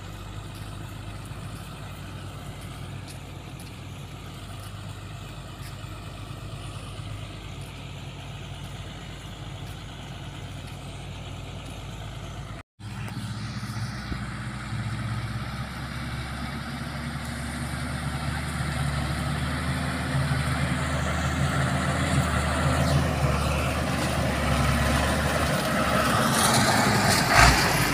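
Hino Ranger truck's diesel engine running as the laden truck drives over a dirt field track, growing louder as it comes closer in the second half. A few sharp knocks near the end.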